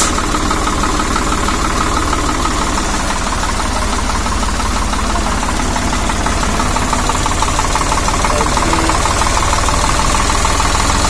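Swaraj 855 tractor's diesel engine idling steadily, with a rapid, even clatter.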